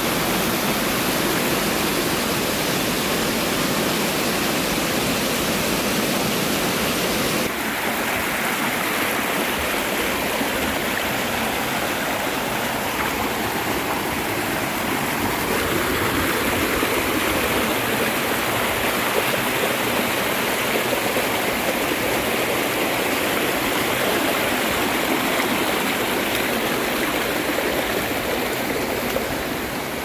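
Rushing water of a small waterfall pouring between granite boulders. About seven seconds in, it changes suddenly to a shallow mountain stream running over rocks and stones, with less hiss.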